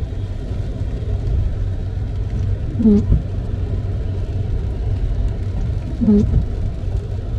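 Car driving on a wet road: steady road and tyre rumble, with the windscreen wipers sweeping twice, about three seconds apart, each pass a short dragging squeak of stiff wiper blades.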